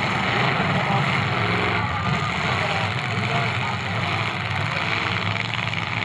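Several demolition derby cars' engines running together at varying speeds, a steady mechanical din with shifting engine pitches.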